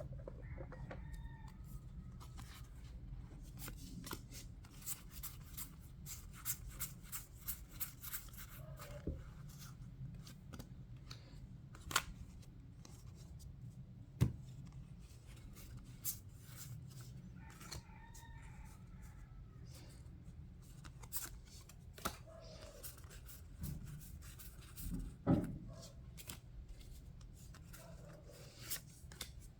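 Trading cards being handled and sorted by hand: a run of small clicks, flicks and taps as cards are flipped and laid down, over a low steady hum. Twice, about a second in and again near the middle, a faint drawn-out call sounds in the background.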